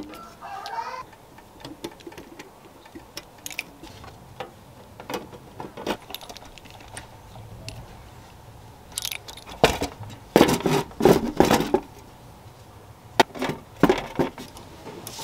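Irregular clicks and light knocks of small hard parts being handled, with a cluster of louder knocks about ten seconds in and a few more near the end.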